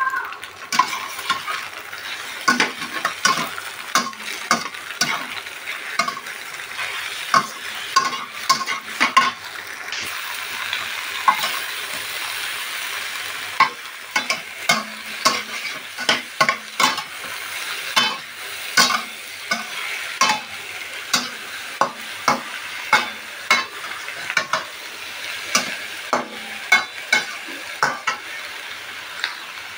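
Tofu, egg and diced vegetables sizzling in a metal wok while a metal spatula stirs them, its edge scraping and clacking against the pan at irregular intervals, these clacks being the loudest sounds. About a third of the way in there is a stretch of a few seconds with few strikes and a steadier, louder sizzle.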